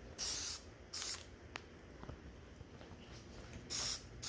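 Aerosol spray-paint can sprayed in short bursts: three quick hisses, one at the start, one about a second in and one near the end, with pauses between.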